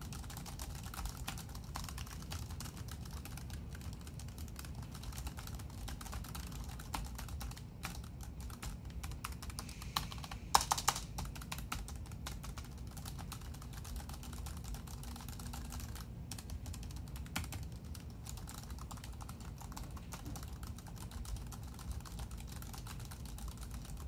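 Typing on a Logitech K800's low-profile plastic scissor-switch keys: a steady run of quiet keystroke clicks, with a brief louder cluster of strokes about ten seconds in.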